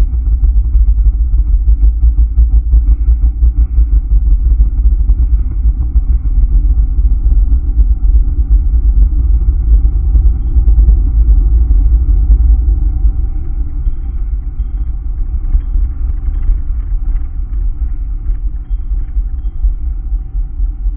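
Background music built on a deep, rapidly pulsing bass rumble under a steady higher drone, easing slightly about two-thirds of the way through.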